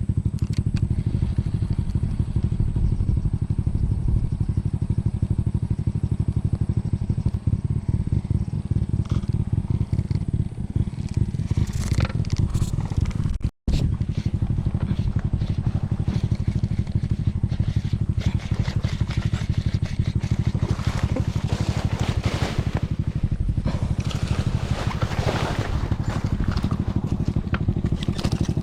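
A small engine running steadily, with light rattles and scrapes over it; the sound drops out for an instant about halfway through.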